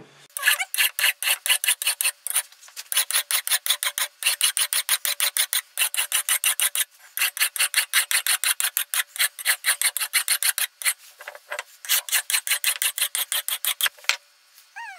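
Medium bastard file drawn across the steel bit of a hatchet in quick, even rasping strokes, about four a second, sharpening the bevel of the edge on its second side. The strokes pause briefly midway and stop shortly before the end.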